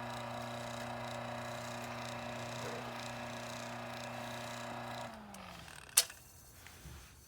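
A spare electric motor for a key-cutting machine, under test, runs with a steady hum. About five seconds in it is switched off and winds down, falling in pitch. About a second later there is one sharp click.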